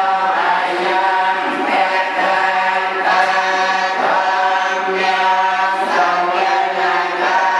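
Buddhist monks chanting a litany together in unison, held on one steady, nearly unchanging pitch with brief breaks for breath.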